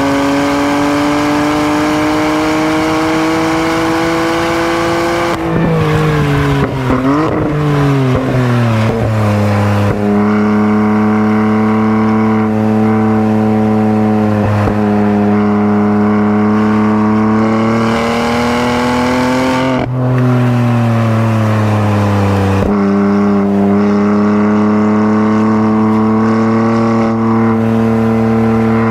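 BMW M3 F80's twin-turbo straight-six engine and exhaust driven hard: revs climb steadily, then fall with a few quick wavering rises about six seconds in, as on braking and downshifting. It pulls again, dips once more a little after twenty seconds, and climbs back.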